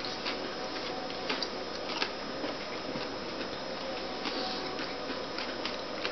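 Mouths chewing toffee-crunch chocolates: faint, irregular crunching clicks over a steady hiss.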